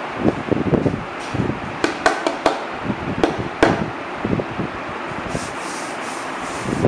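About six sharp taps and knocks of a hand on a bed laptop stand's wooden top, bunched between about two and three and a half seconds in, over a steady hiss of handling and wind noise on the microphone.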